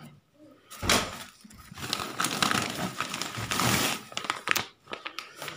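Plastic packaging bag rustling and crinkling as it is handled, coming in uneven bursts from about a second in.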